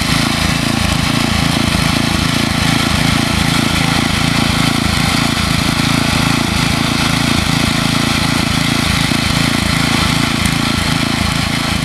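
Walk-behind garden tiller's small gas engine running steadily under load as it tills soil.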